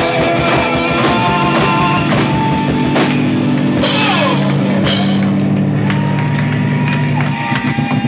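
Rock band playing live with the drum kit close up: drums and cymbals driving steadily over sustained electric guitar chords, with two cymbal crashes about four and five seconds in.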